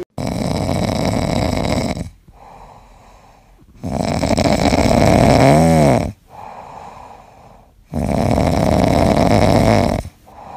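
Domestic cat snoring in its sleep: three long snores about four seconds apart, with quieter breaths between them. The middle snore carries a brief wavering whistle-like pitch.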